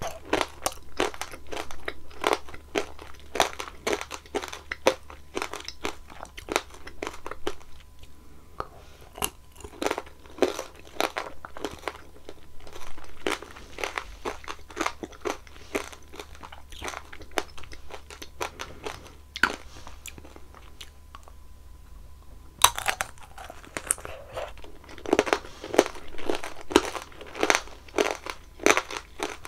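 Close-miked crunching and chewing of strawberry tanghulu: the hard candied-sugar glaze cracking between the teeth in dense runs of sharp crunches, with short pauses. A quieter spell is followed, about three-quarters through, by a fresh run of loud crunching.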